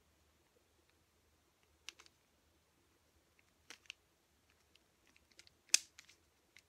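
3x3 mirror cube being turned by hand: scattered dry plastic clicks as its layers are twisted, sparse at first and bunching together near the end, where the loudest click falls.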